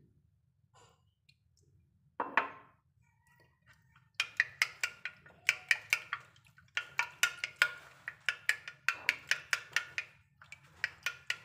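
A metal utensil beating an egg-and-milk mixture in a glass baking dish, clinking rapidly against the glass in several runs with short pauses, starting about four seconds in. A single knock comes about two seconds in.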